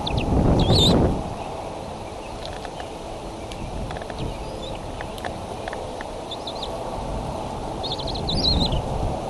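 Wind rumbling on an outdoor nest-cam microphone, swelling in a gust about a second in, with short high bird chirps about a second in and again near the end.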